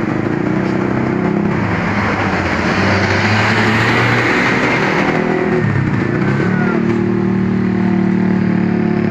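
Bus engine running close by. A rush of noise swells and fades over about four seconds in the middle as the bus moves, then the engine settles into a steady hum.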